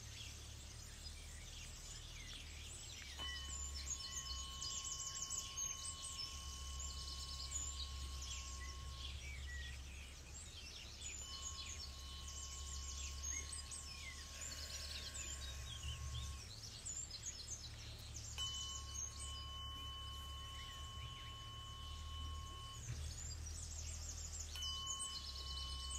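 Tuning fork struck four times; each strike rings one steady high tone for about five or six seconds and then stops. Birds chirp in the background.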